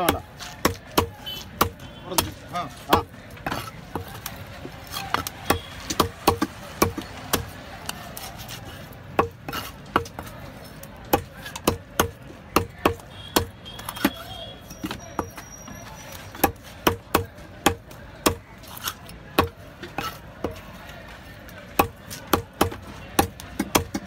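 Curved fish-cutting knife striking a round wooden chopping block while small trevally are scaled and cut: a long run of sharp knocks at an irregular pace, roughly two a second.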